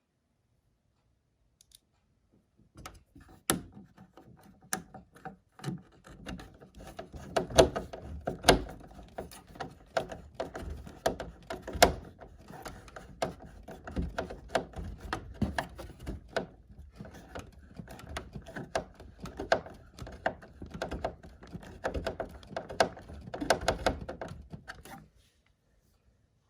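Irregular clicks, taps and knocks of parts being handled and screwed back in while reassembling a heat pump's indoor fan unit. The clicking starts about three seconds in and stops shortly before the end, with a few much louder knocks among quieter ones.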